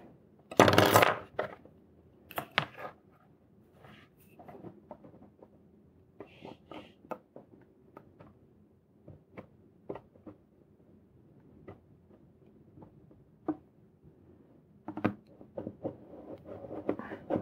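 Light clicks and taps of thin circuit boards being handled and fitted together, with a short burst of handling noise about a second in and denser clatter near the end.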